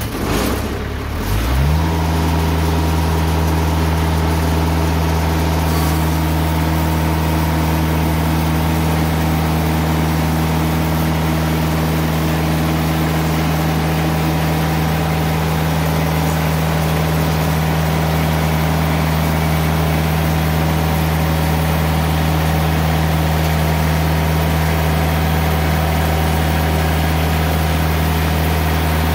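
TimberKing 2020 bandsaw mill's engine throttling up about a second in, then holding a steady hum as the bandsaw blade cuts through a log.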